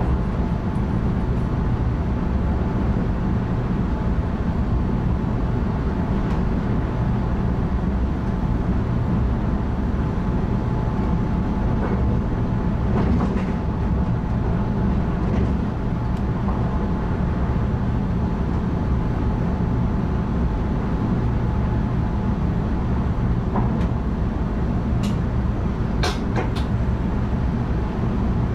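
NS ICM (Koploper) electric multiple unit running at speed, heard from the driver's cab: a steady rumble with a thin steady whine over it, and a few sharp clicks near the end.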